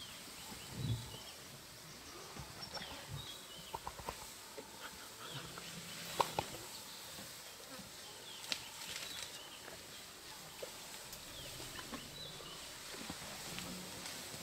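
Outdoor bush ambience: scattered short bird chirps and small snaps and rustles, with one sharper crack about six seconds in.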